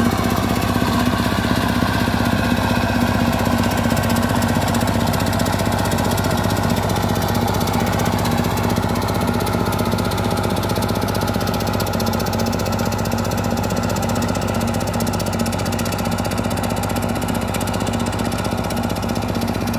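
Single-cylinder diesel engine of a two-wheel paddy tractor running steadily under load as it hauls through a flooded rice field, growing slightly fainter as it moves away.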